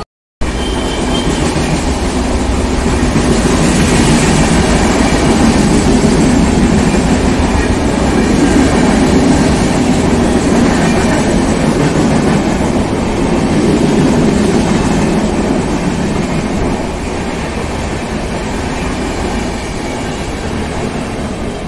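Passenger train coaches rolling past on the track: a steady, loud noise of wheels running on rail, which eases a little in the last few seconds as the end of the train goes by. The sound drops out briefly just at the start.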